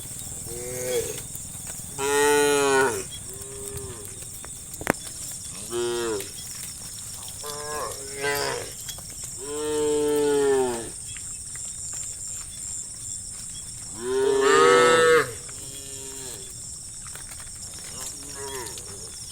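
A herd of cows mooing, about nine calls from several animals, some short and soft, the loudest long moos about two, ten and fourteen seconds in.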